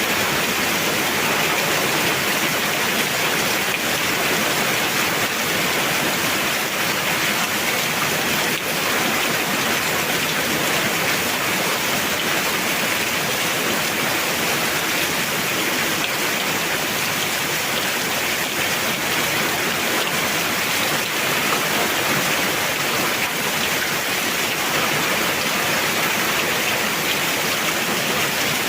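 Heavy rain falling steadily, a dense even hiss of downpour with scattered drop ticks.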